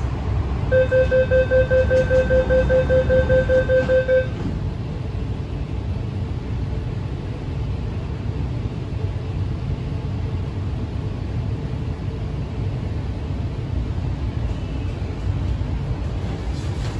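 Train door-closing warning: a fast run of even, high beeps, about five a second for some three and a half seconds, as the doors shut, followed by the steady low rumble of the metro train.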